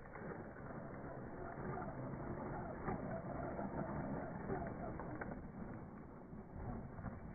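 WLtoys 12428 RC car driving across gravel and dirt: its electric motor and tyres crunching and clicking over loose stones, slowed and pitched down by slow-motion playback. It is loudest about three to four and a half seconds in, as the car passes.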